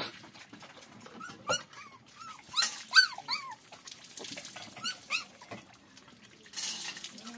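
Puppies whining and yelping in a string of short squeals, the loudest about three seconds in, as they jostle over a shared feeding bowl. A brief scuffling noise comes near the end.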